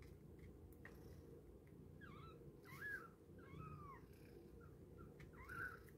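One-week-old kittens mewing faintly: about five short, high squeaky mews, starting about two seconds in, each rising and falling in pitch.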